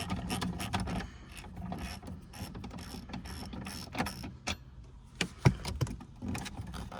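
Hand ratchet clicking as a small dash bolt is worked loose, fast clicks at first, then scattered clicks and handling, with one sharp knock about five and a half seconds in.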